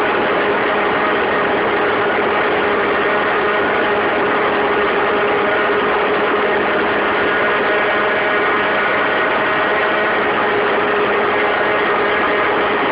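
Modified Peugeot 103 RCX moped's 50cc two-stroke geared engine running steadily at high revs while riding at speed, with a constant rush of wind noise.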